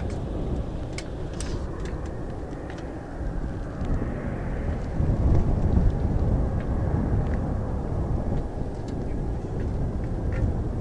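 Boeing 737-800 climbing away after takeoff, its twin CFM56-7B turbofan engines heard as a deep jet rumble. The rumble swells about four seconds in.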